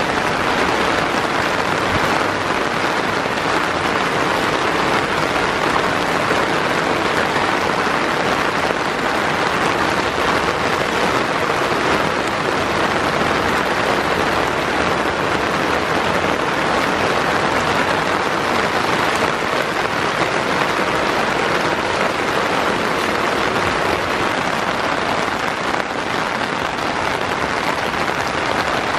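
Heavy rain pouring steadily, a dense even hiss with no letup.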